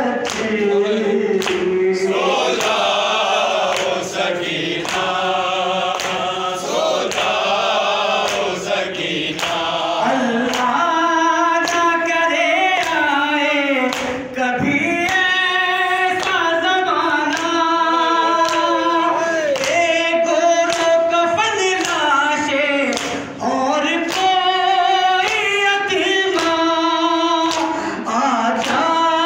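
Male voice chanting an unaccompanied Urdu noha, a Shia mourning lament, into a microphone, with a steady sung melody. Sharp slaps of a hand beating the chest (matam) keep time through the chant.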